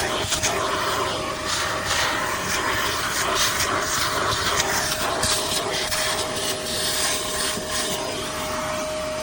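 Koblenz WD-2L portable wet/dry vacuum running steadily, its motor making a constant whine over a loud rush of air, with scattered short crackles.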